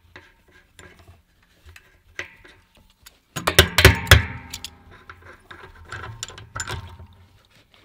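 Metal tools clicking against a brass fitting as the nut at the bottom of an expansion vessel is worked loose, with a loud burst of rapid metallic clicking and clattering about three and a half seconds in, then lighter clicks.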